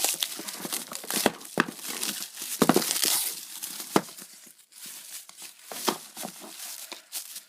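Plastic packaging crinkling and tearing as it is pulled off a boxed phone, with scattered sharp clicks and a louder burst of rustling about three seconds in.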